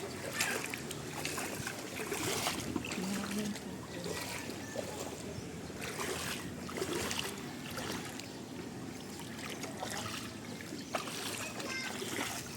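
Creek water flowing and sloshing, with irregular louder splashes every few seconds.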